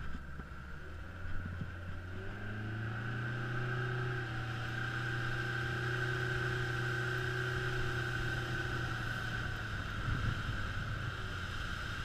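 Motorboat engine running: its pitch climbs over the first couple of seconds as it speeds up, holds steady, then eases off and breaks up near the end.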